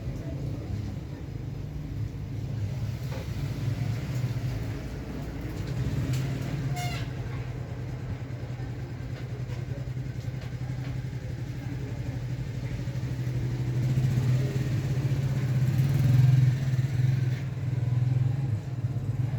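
A motor vehicle engine running, a steady low drone that swells louder about three quarters of the way through.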